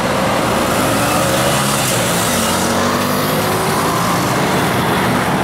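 Road traffic pulling across the tracks as the crossing gates lift: cars, a pickup and a truck accelerating close by, engines rising in pitch over steady tyre noise.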